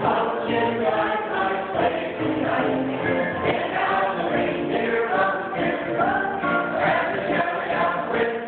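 A small choir of men's and women's voices singing together, accompanied by acoustic guitar.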